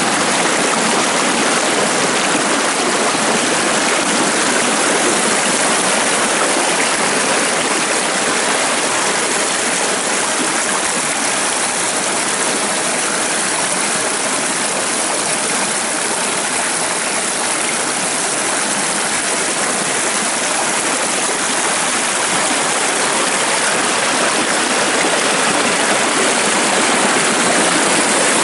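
Rain-swollen rambla, a normally dry gully now running with storm runoff, rushing and splashing over rocks in shallow white water. A steady, loud rush.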